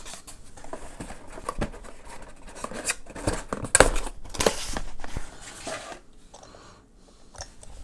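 Cardboard box and its foam insert being handled: irregular rustling, scraping and light knocks, busiest about halfway through.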